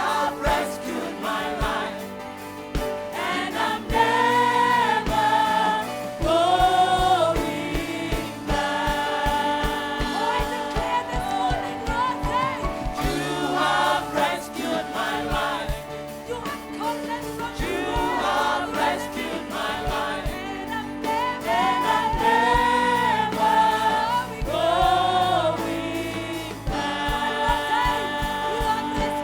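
Gospel worship music: a choir and congregation singing with a band, over a steady drum beat.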